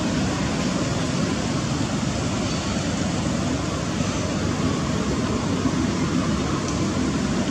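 Steady rushing noise at an even level, with no animal calls.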